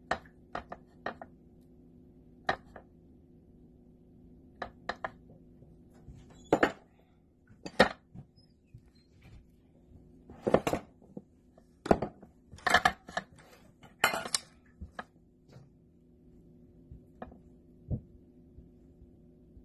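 Silicone spatula scraping and knocking against a glass mixing bowl and a metal muffin tin while batter is scooped into the cups: scattered light clicks and knocks, with several longer, louder scrapes in the middle.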